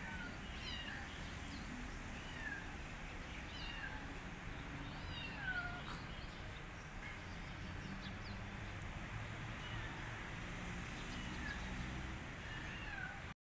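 Kitten meowing over and over: many short, high-pitched calls that slide down in pitch.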